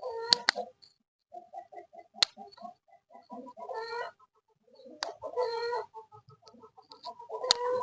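Chicken clucking in runs of short quick clucks and a few louder squawky calls, with several sharp clicks in between.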